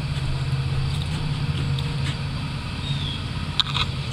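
An engine running steadily with a low, even hum. Near the end come a few light metallic clicks as the bent wrought-iron screen door grille is handled.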